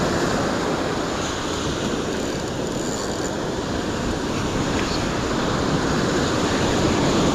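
Surf breaking and washing on a beach, a steady rushing noise with wind buffeting the microphone.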